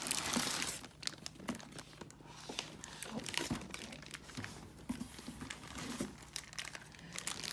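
Packing material crinkling and rustling as items are unpacked from a shipping box by hand, in irregular crackles with a louder rustle in the first second.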